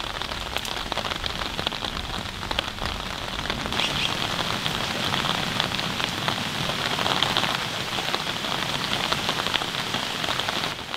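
Steady rain falling on a shallow stream and the grass along its banks.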